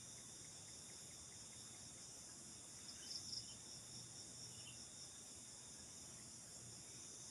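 Faint, steady high-pitched chorus of night insects such as crickets in the forest, with a brief louder chirp about three seconds in.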